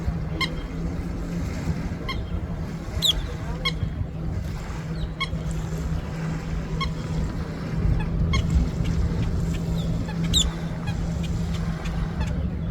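Birds calling over a steady low hum: short calls repeat about every second and a half, with two higher sweeping calls, one about three seconds in and one near the end.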